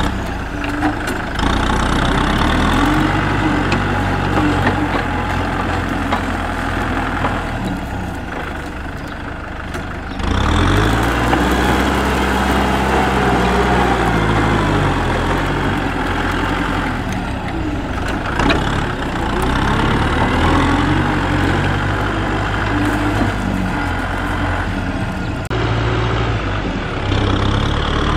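Kubota tractor's diesel engine running under load while its rotary tiller works the soil, the engine speed swinging up and down. It gets louder about ten seconds in.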